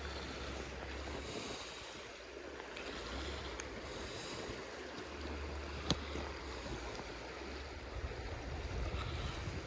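Shallow creek water running steadily over stones, with gusts of wind rumbling on the microphone on and off, and a single sharp click about six seconds in.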